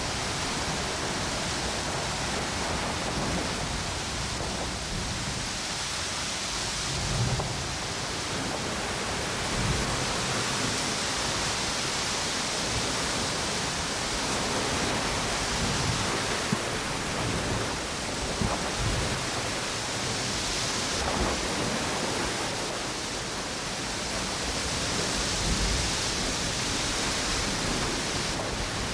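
Ocean waves washing on a beach under strong storm wind: a steady rushing noise, with low rumbling gusts every few seconds.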